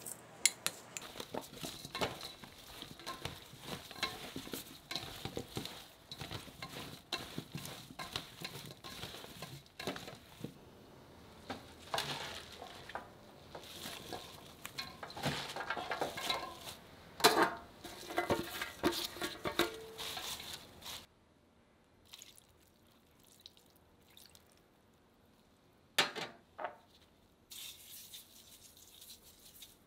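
Salted radish chunks being tossed with red pepper flakes in a stainless steel bowl: a dense run of clicks and knocks as the pieces tumble against each other and the bowl, which stops about two-thirds of the way through. After that there are only a few short sounds, with a brief hiss of sugar being sprinkled near the end.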